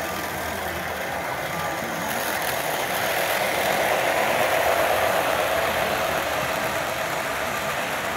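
Model steam locomotive and freight cars rolling past on the layout's track, a steady rumbling that swells as the locomotive passes close, about four to five seconds in, then eases off.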